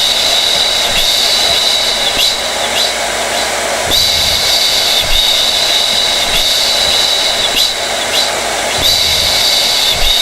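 Hair dryer running steadily: an even rush of blown air with a high whine that swells and fades every few seconds.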